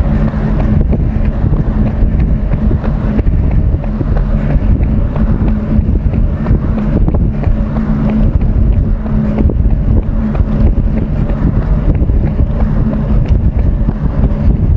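Wind buffeting the microphone of a camera carried on a run: a loud, rough low rumble with a steady low hum under it.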